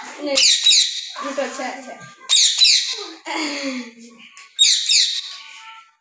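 Pet parakeet squawking: three shrill, harsh bursts about two seconds apart, each a quick run of short screeches.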